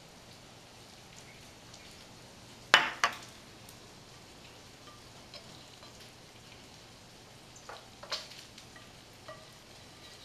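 Silicone spatula scraping cooked seafood stuffing out of a nonstick frying pan, with light clicks of the utensil on the pan. Two sharp knocks come close together about three seconds in, and a few more near eight seconds.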